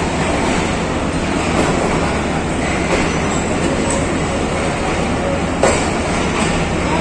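Train of Pakistan Railways passenger coaches rolling along the platform line, a steady rumble of wheels on rails, with one sharp clack about five and a half seconds in.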